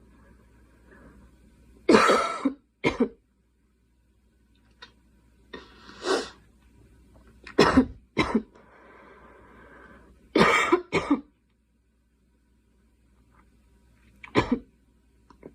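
A girl coughing repeatedly, in short bouts of one or two coughs with pauses of a second or more between them.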